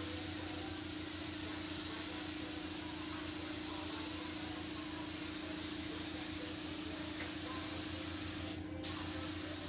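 Air-fed paint spray gun hissing steadily while spraying base coat onto a vehicle panel, with a steady low hum underneath. The hiss cuts out for a moment near the end as the trigger is released, then starts again.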